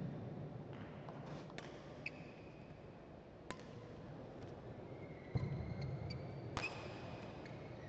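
Badminton rackets striking a shuttlecock, three sharp cracks in the second half, with shoes squeaking and feet thudding on the synthetic court mat.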